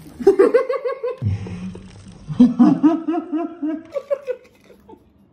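Men laughing in two rhythmic bursts: a higher run in the first second, then a lower, longer run from about two and a half seconds in, dying away about a second before the end.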